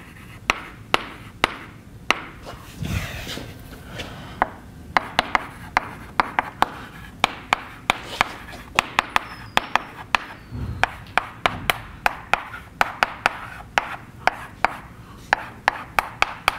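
Chalk writing on a blackboard: quick sharp taps and short scratches as symbols are written, in irregular runs of several taps a second.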